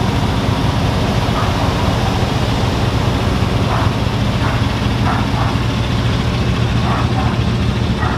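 Pickup truck engine idling, a steady low hum that does not change, with faint voices talking in the background.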